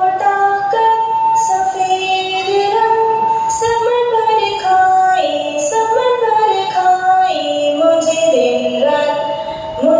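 A woman singing a song over musical accompaniment, with held notes moving in steps.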